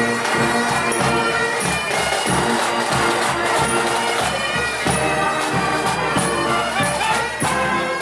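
Highland bagpipes playing a march tune, the chanter's notes moving over the steady drones.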